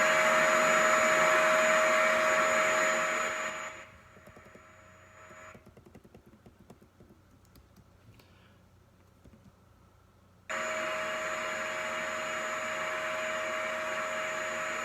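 Vacuum cleaner running with a steady whine, dying away about four seconds in. After a quiet pause with a few faint clicks it runs again from about ten seconds in, a little quieter.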